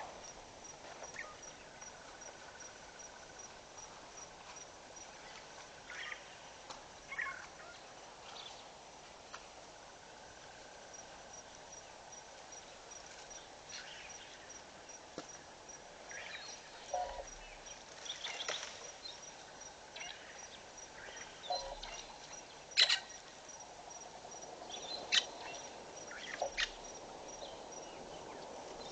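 Quiet bush ambience: a faint series of high pips, about three a second, with scattered short chirps and sharp clicks, the loudest click about two-thirds of the way through.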